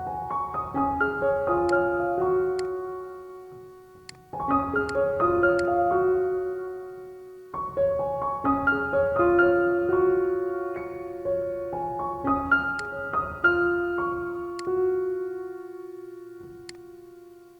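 Background piano music: short melodic phrases of struck notes that fade away, with a new phrase starting about every four seconds.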